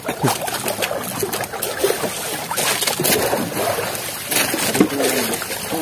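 Choppy sea water sloshing and splashing against a small boat's hull, a steady wash of noise with irregular slaps, in rough waves.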